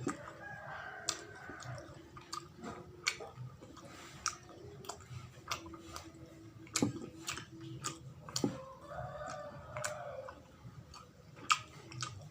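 Close-up mouth sounds of someone chewing sawella, a sticky sweet of glutinous rice, coconut and palm sugar: wet smacks and irregular sharp clicks.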